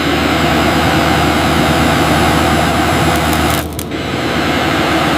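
A steady, loud rushing hiss of machinery with a low hum under it, dropping away briefly a little past the middle and then coming back.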